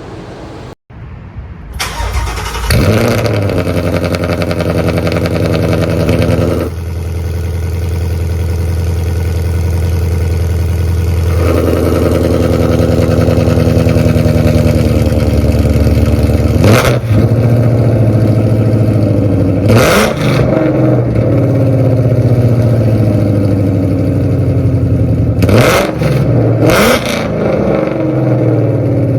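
Ford Mustang GT's 5.0-litre V8 cold-starting through aftermarket valved mufflers: it catches about two seconds in with a flare, holds a loud fast idle, then drops to a steadier idle. Four sharp throttle blips follow in the second half.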